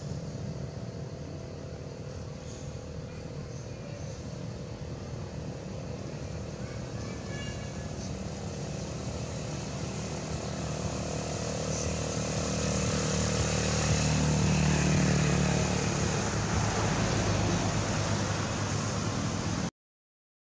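Outdoor background noise with the steady hum of a motor, growing louder over several seconds about halfway through, then cutting off suddenly near the end.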